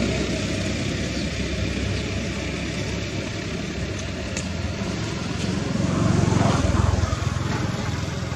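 An engine running steadily at idle, briefly louder about six seconds in.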